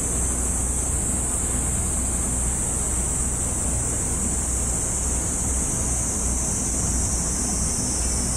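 Steady outdoor background noise: a low rumble with wind noise, and a constant high-pitched hiss over it.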